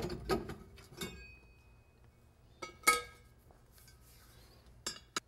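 Steel brake drum being pulled off the rear hub with scraping clicks, then a loud ringing metallic clank about three seconds in as the drum is set down, and a few lighter clicks near the end.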